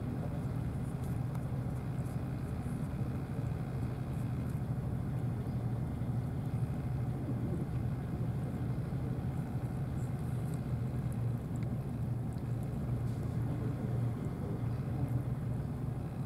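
An engine idling steadily with a constant low hum, with a few faint ticks over it.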